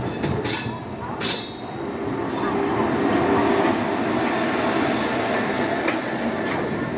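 Tamil Nadu Express passenger train running on the line, a steady rumble of wheels on rail. Three short high-pitched bursts come in the first two and a half seconds, and the rumble grows a little louder after about two seconds.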